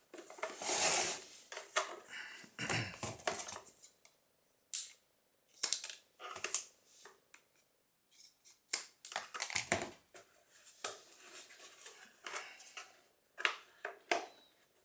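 A wide flat polypropylene welding electrode being cut to shape: short, irregular cutting and scraping sounds that come in bursts with pauses between them.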